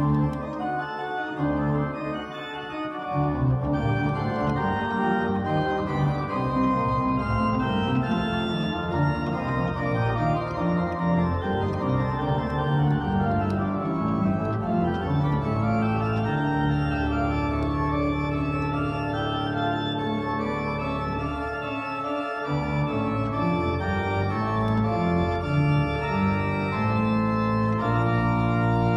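Church organ played with both hands on a two-manual console: sustained full chords and moving lines, with deep bass notes entering about three seconds in.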